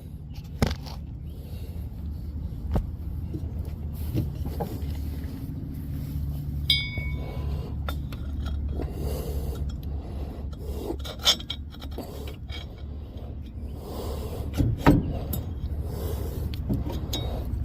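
Metal scraping and clinking of a bolt and hand tools as the bolt is fitted into a Husqvarna Z254 mower's PTO clutch, with a single ringing metal clink about seven seconds in, over a steady low hum.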